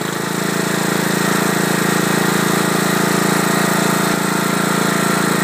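Riding lawn mower's engine running steadily just after being started.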